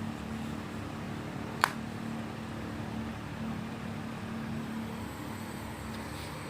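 A steady low hum with background hiss, and one sharp click about a second and a half in.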